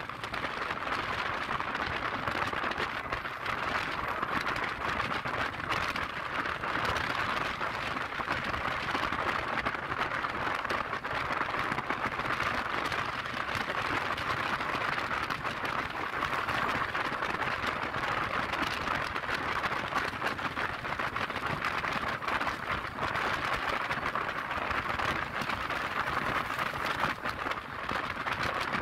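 Steady rushing hiss of wind and road noise from riding a scooter at cruising speed, with no clear engine note and no change in level.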